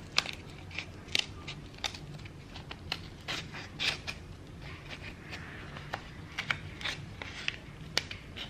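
Scissors snipping through folded paper in short, irregular cuts while a small circle is cut out.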